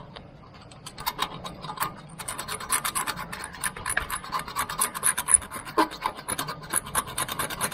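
Hand deburring tool scraping rust out of a wheel bearing seat in quick, repeated strokes, starting about a second in.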